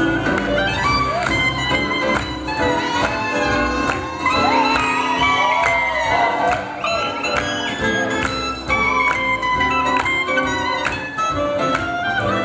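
Live swing jazz band playing an up-tempo tune with a steady beat. A melody line bends and slides between notes in the middle.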